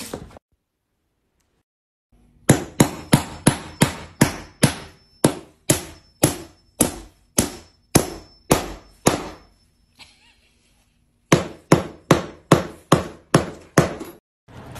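Hammer blows on a plywood floor panel, starting about two seconds in: a quick run of about twenty sharp strikes, roughly three a second, then a pause of about two seconds and another run of about a dozen. Each strike rings briefly.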